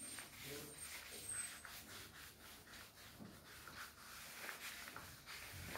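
Cloth duster wiping chalk off a blackboard: soft, repeated rubbing strokes back and forth across the board.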